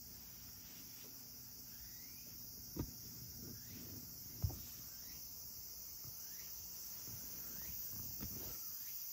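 Steady high-pitched chorus of crickets, with two short knocks about three and four and a half seconds in.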